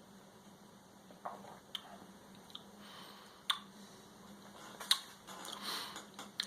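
Faint mouth clicks and lip smacks of someone tasting beer, with a short breath near the end.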